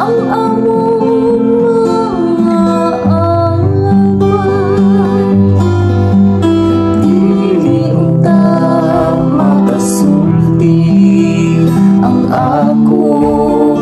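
A woman singing a responsorial psalm, with a steady acoustic guitar accompaniment. Her voice holds long notes with a slight waver over the guitar's changing chords.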